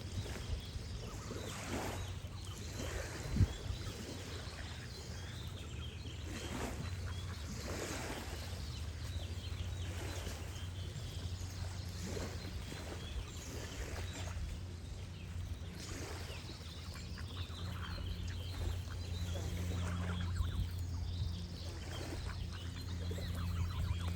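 A goose honking every second or few, with birds singing, over a steady low rumble and gently running water. A single sharp knock about three and a half seconds in.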